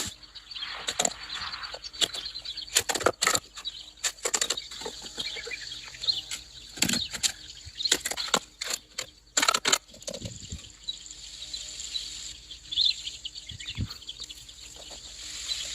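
Irregular sharp knocks and clacks from hand work on timber posts, thick for about ten seconds and then sparser. Birds chirp faintly in the background.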